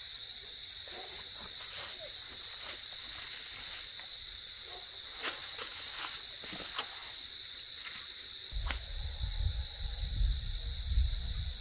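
Steady, high-pitched chorus of insects, with scattered light clicks in the first several seconds and a low rumble coming in about eight and a half seconds in.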